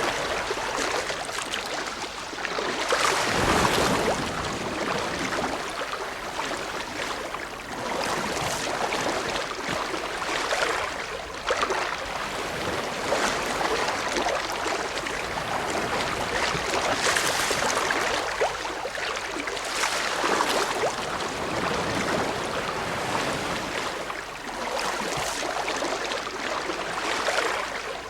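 Ocean waves breaking and washing on a shore, a steady hiss of surf that swells and eases every few seconds.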